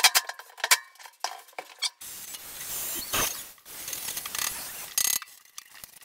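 Quick clicks and mechanical rattling of hand tools at work on a stainless steel bench fit-out, sharp and separate at first, then about two seconds in a denser, steadier clatter with a sharp click near the end.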